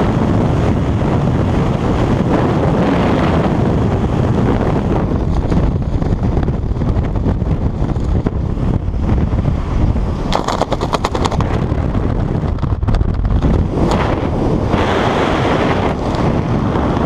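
Steady wind buffeting the skydiver's helmet-mounted camera microphone during the parachute descent, with a short run of rapid clicks about ten seconds in.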